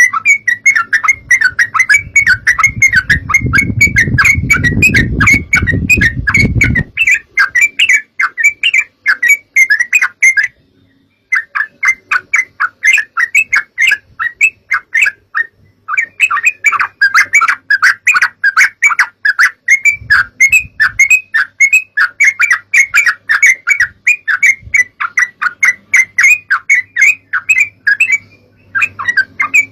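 Yellow-vented bulbuls (trucukan) calling in a rapid, dense chattering chorus of short bubbly notes, with brief pauses now and then; a bird-lure recording. A low rumble sounds under the calls for a few seconds early on.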